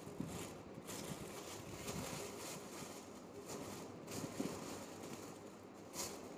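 Thin disposable plastic glove crinkling and rustling as it is handled and pulled onto a hand, with irregular small crackles and a sharper tick near the end.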